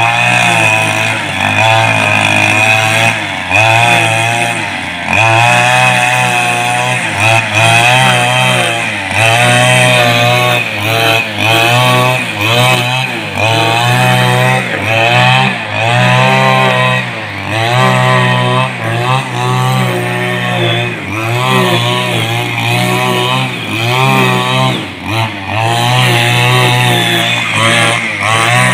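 Petrol backpack brush cutter running loudly as grass is cut, its engine rising and falling in pitch over and over, about once a second.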